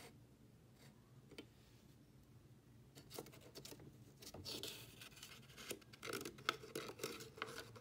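Faint handling sounds of a small box drawer being opened and a paper note being taken out: light clicks, then rustling and scraping of paper that grow busier and louder over the last few seconds.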